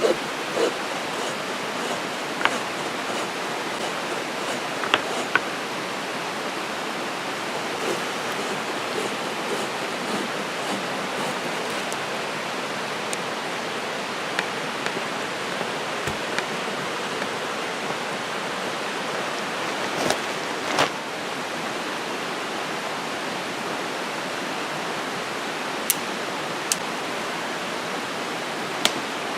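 Steady rush of flowing creek water, with a few scattered short clicks and knocks over it.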